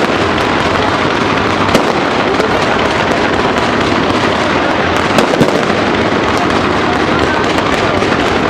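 Fireworks going off: a dense, continuous crackling with a few sharper bangs, one about two seconds in and two close together around five seconds in.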